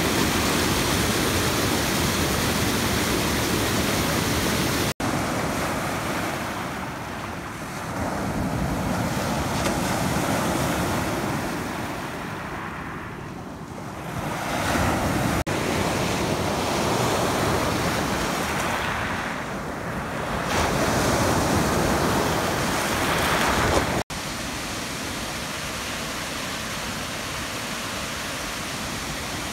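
Rushing white water of a waterfall pouring into a churning pool, then small waves washing in and drawing back over a wet pebble beach, swelling and fading every several seconds. Near the end comes the steadier, softer hiss of a waterfall in a rock gorge.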